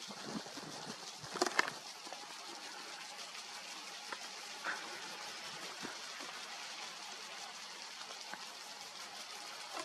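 Steady outdoor hiss of open-field ambience, with a few brief clicks about a second and a half in and a smaller one near five seconds.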